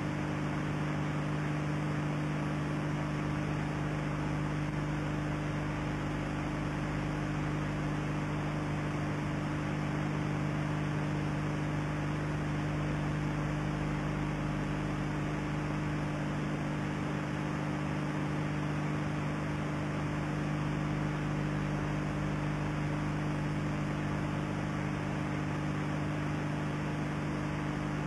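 A steady low electrical hum over constant hiss, the background noise of an old videotape soundtrack.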